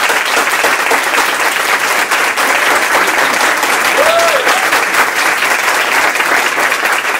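An audience applauding loudly, with steady, dense clapping throughout.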